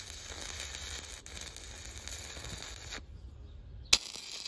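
Stick-welding (SMAW) arc from a 7018 electrode burning along a flat joint: a steady crackling hiss. The hiss thins out about three seconds in, and there is a sharp click just before the end.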